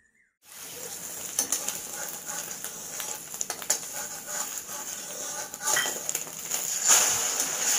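Egg omelette sizzling steadily in a metal kadai, starting about half a second in, with a spatula scraping and knocking against the pan now and then as it is worked under the omelette to loosen it.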